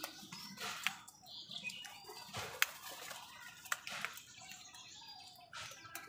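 House crows pecking at food, their beaks giving a handful of sharp, scattered taps against a plastic bowl and concrete, over soft shuffling and rustling.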